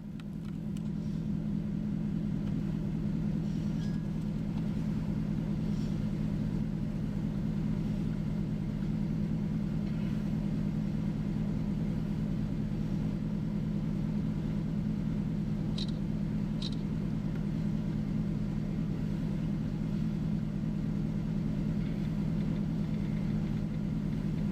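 Vehicle engine idling with a steady low hum, fading in over the first couple of seconds. Two faint clicks come about sixteen seconds in.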